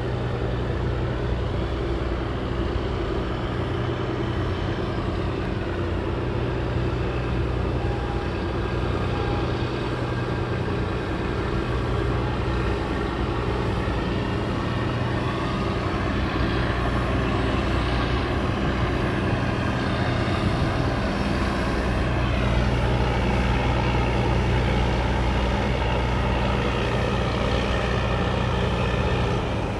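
Low, steady engine drone of a large container ship under way close by, with water rushing along its hull.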